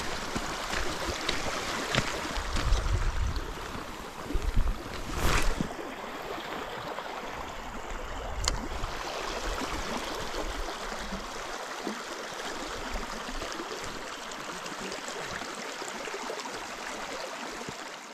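Lake water lapping and splashing at the shore, with wind buffeting the microphone during the first few seconds and a few sharp clicks about 2, 5 and 8 seconds in.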